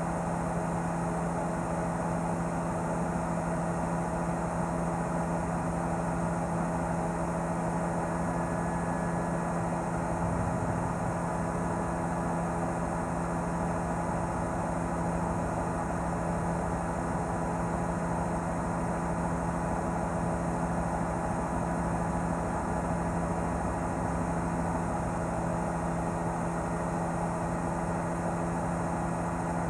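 News helicopter's engine and rotor noise: a steady drone with several held tones.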